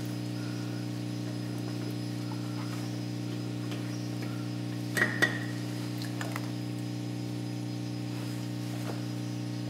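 Steady electrical mains hum. There are two sharp clinks in quick succession about halfway through, and a couple of fainter ticks shortly after.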